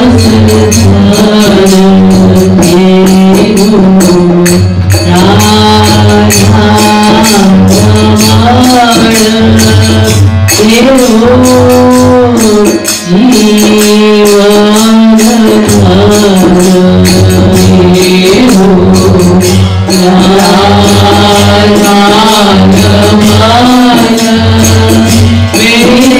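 Devotional bhajan: a woman singing a slow melody with a harmonium and a steady, regular percussion beat.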